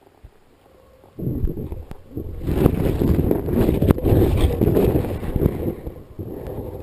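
Water rushing and churning over an underwater camera as it is swept through the water: a sudden loud, rumbling wash starting about a second in and growing stronger a second later.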